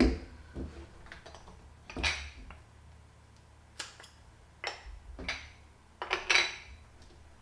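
Short metallic clicks and clatters of a 50mm Canon FD lens being handled and fitted onto a Canon F-1 35mm film camera body. About seven separate clicks, the loudest about two seconds in and about six seconds in.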